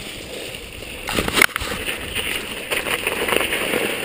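Mountain bike riding over a dirt and snow trail: steady tyre, rattle and wind noise, with a cluster of sharp knocks from the bike, the loudest about a second and a half in.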